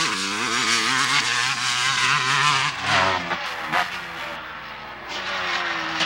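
A motor vehicle's engine revving up, running at speed with a wavering pitch, then winding down over the last few seconds.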